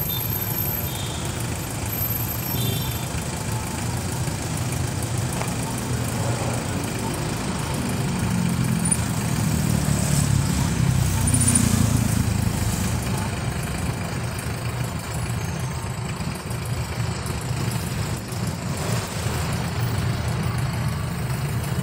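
Steady low rumble of road traffic, swelling a little about halfway through.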